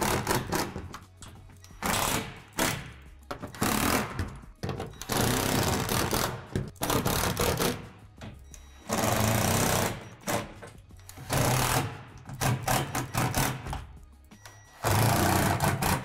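Cordless power driver running in short bursts, each about a second or less, about ten times over, driving screws through a shed roof panel into the truss.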